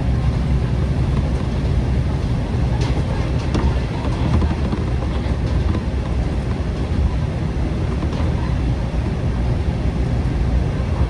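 JR Shikoku KiHa 40/47 series diesel railcar under way, heard from inside: a steady low rumble of the diesel engine and running gear, with a few faint clicks about three seconds in and again near eight seconds.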